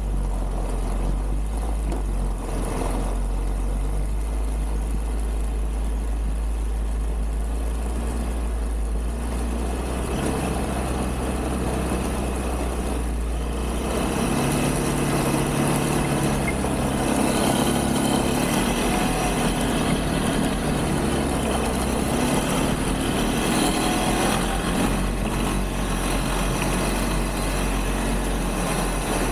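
ATV (quad) engine running while being ridden over snow. The engine note is steady at first, then rises and grows a little louder about halfway through as the revs pick up.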